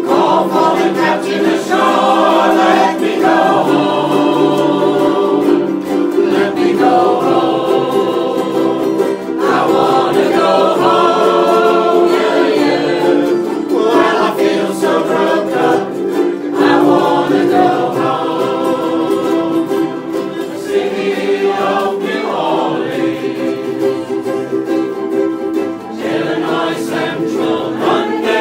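A group of ukuleles strumming together while men and women sing in chorus.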